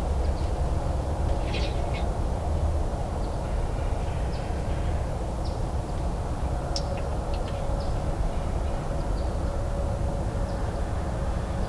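Outdoor woodland ambience: a steady low rumble with faint, short bird chirps and calls scattered through it.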